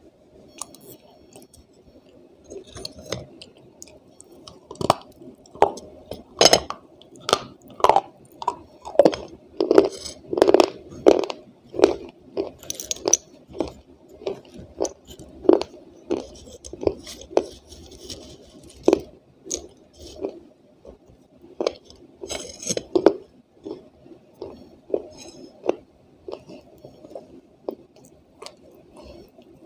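Dry white clay chunks being crunched and chewed: a steady run of sharp, crisp crunches, roughly one to two a second. They are loudest and closest together in the first half.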